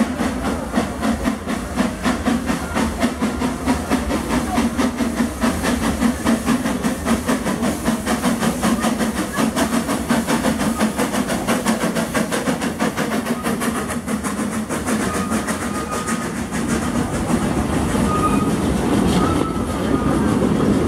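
Steam train passing close by: a quick, even beat of chuffs and wheel clatter on the rails, smoothing into a steadier rumble in the last few seconds as the cars roll past.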